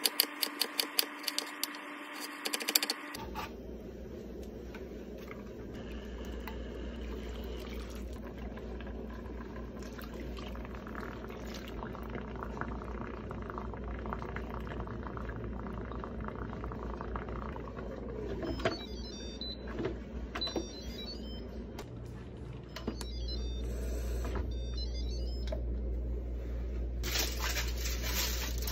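A knife chopping an onion on a cutting board: rapid, even knocks for about three seconds. Then liquids pour into the Instant Pot's steel inner pot, with scattered small clicks.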